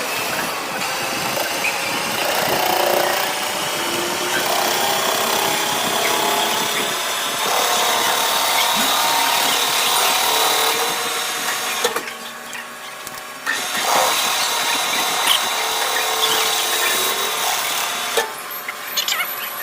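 Machine tool cutting into a weld bead on metal: a steady cutting noise with a faint high whine that slowly rises. It eases off briefly about twelve seconds in and again near the end.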